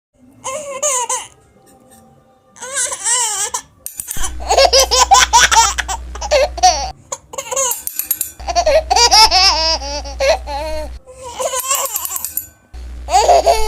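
A baby laughing and giggling in repeated high, wavering bursts, with music underneath.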